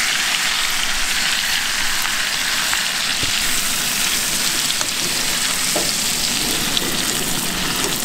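Melted butter and oil sizzling in a hot pan: a steady frying hiss with faint scattered crackles.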